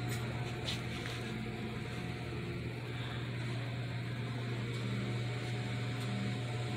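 Steady low hum of room noise in a small shop, unchanging throughout, with a couple of faint clicks near the start.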